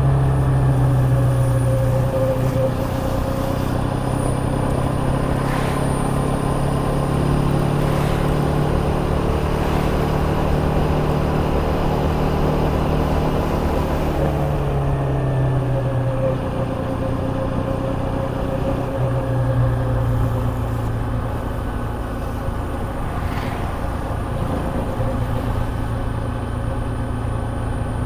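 KTM Duke 250's single-cylinder engine running steadily under way, its engine note dropping and climbing back a few times over the stretch.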